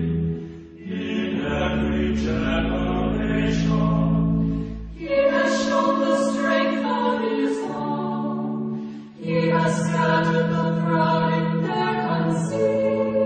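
A choir singing a slow Marian hymn in Gregorian chant style, with long held notes in phrases of about four seconds and brief pauses for breath between them.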